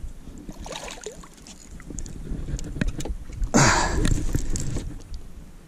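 A hooked bass splashing at the surface and being lifted out of the water beside the boat, a loud splash about three and a half seconds in that lasts around a second, with scattered small clicks before it.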